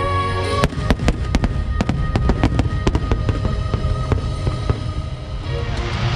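A large fireworks barrage: a rapid string of shell bursts and pops starts under a second in, giving way near the end to a dense hissing crackle. Music plays underneath.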